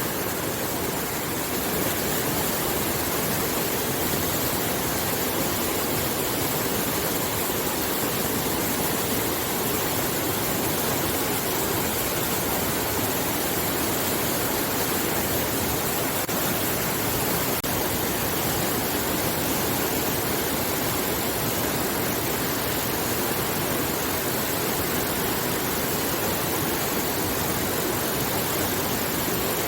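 River water flowing: a steady, even rush of moving water that does not change.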